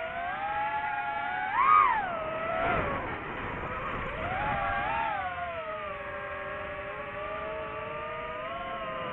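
DJI FPV drone's motors and propellers whining, the pitch rising and falling with throttle. A sharp throttle punch a little under two seconds in briefly sends the pitch and loudness up.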